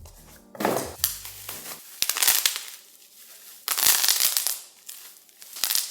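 Packaging crinkling and rustling in several loud bursts as an item is unwrapped, with a few sharp clicks between.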